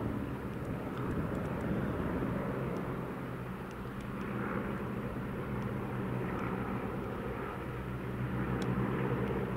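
A formation of nine de Havilland Tiger Moth biplanes flying past, their piston engines droning steadily together and swelling a little near the end.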